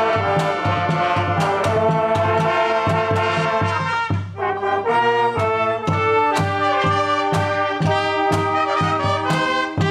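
A school band's brass and woodwind section (trombones, saxophones, sousaphone, clarinet) playing a tune live over a steady beat of about two pulses a second, with a short break in the chords about four seconds in.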